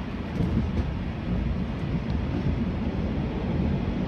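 A 485-series electric train running at speed, heard from its cab as a steady, dense low rumble of wheels on rail. It grows a little louder about half a second in as the train enters a tunnel, with a few faint clicks early on.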